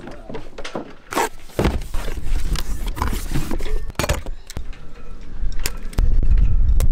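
Wind rumbling on the microphone, louder near the end, with scattered clicks and knocks as a marine shore power cord and its plug are handled.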